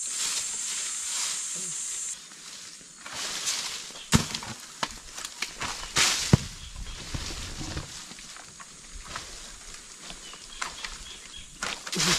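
A steady high insect buzz that stops abruptly about two seconds in, then rustling and scattered sharp knocks and heavier thuds, the loudest about four and six seconds in.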